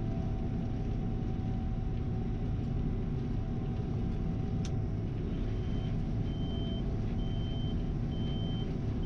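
Gleaner R72 combine engine running steadily with the separator switched off, with a steady whine over the drone. A single sharp click about halfway through, then the backup alarm starts, a single-tone beep repeating a little faster than once a second as the combine reverses.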